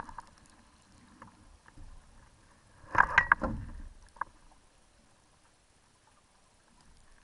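Water slapping and splashing against a small sailing dinghy's hull: a short loud burst of knocks and splashing about three seconds in, a single knock just after, and faint water noise otherwise.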